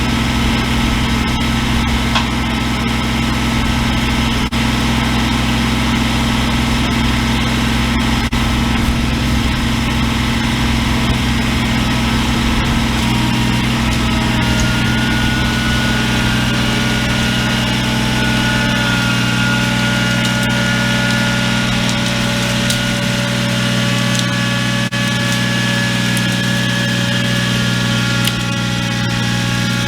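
An engine idling steadily, its note shifting slightly about 13 seconds in.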